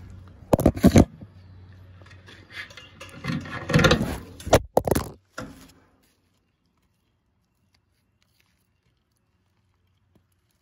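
Handling noise: rustling, clattering and several loud knocks as the phone is jostled and set down, then the sound cuts to silence about six seconds in.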